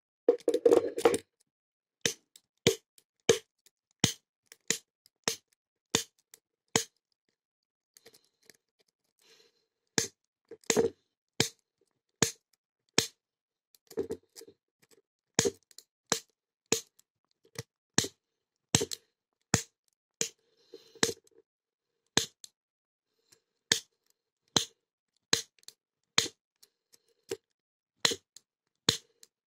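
Manual snap gun (pick gun) being triggered over and over in the keyway of a Beorol brass padlock, held under a thin tension wrench: a run of sharp metallic snaps, about one to two a second, with a short break about seven seconds in.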